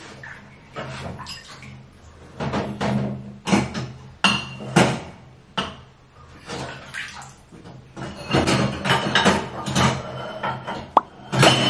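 Dishes and utensils clattering and knocking at a kitchen counter, in irregular handling noises and scrapes, with a faint steady low hum underneath.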